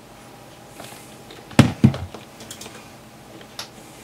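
Two quick knocks about a second and a half in, a quarter second apart, then a few lighter clicks: handling noise from hands moving multimeter probes over the open metal chassis on the workbench.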